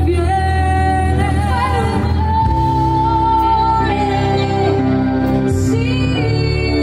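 A live pop band playing with female vocals: long held sung notes over keyboards, electric guitars and bass guitar.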